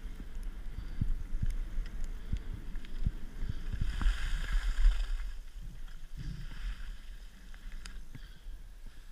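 Skis sliding over packed piste snow, with wind rumbling on the camera's microphone and short knocks from bumps in the run. About four seconds in, a louder hiss of snow scraped under the ski edges swells for about a second.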